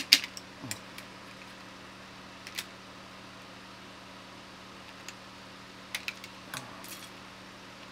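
Small sharp plastic clicks and snaps as a small screwdriver pries at the latches of a Ford EV battery module's plastic cover. The loudest comes right at the start, then a few scattered ones follow, with a cluster near the end, over a steady low hum.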